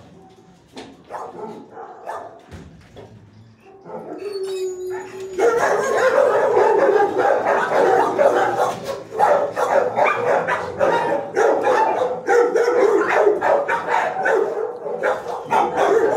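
Shelter dogs barking in the kennels: scattered barks at first, then from about five seconds in a loud, dense din of many overlapping barks.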